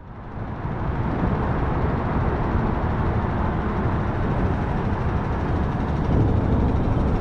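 Steady rumble of road traffic crossing the bridge deck overhead, heard from beneath the bridge, building up over the first second.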